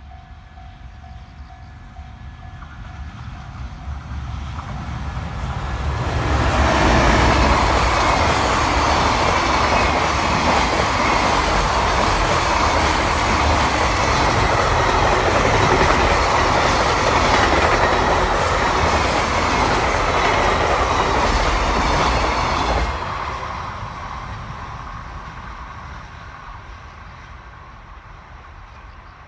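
Freight train hauled by an EF510 electric locomotive approaching, passing at speed with its wagons' wheels running on the rails for about sixteen seconds, then fading away.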